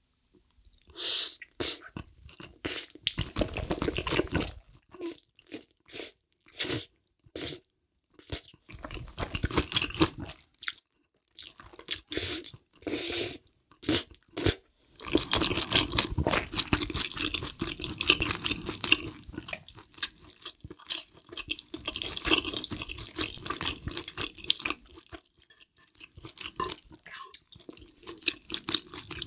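Close-miked eating of creamy rose cheese pasta: a run of short, separate wet mouth noises as wide noodles are taken in during the first half, then steady, continuous chewing from about halfway through.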